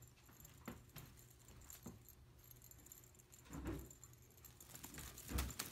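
Faint light rattles and taps from a feather wand cat toy as a cat swats at it, a few scattered strikes with a slightly louder one just past the middle.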